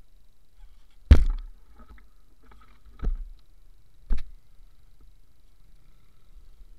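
Three sharp thumps close to the microphone, the loudest about a second in, then two more at about three and four seconds, each dying away quickly over a low steady background.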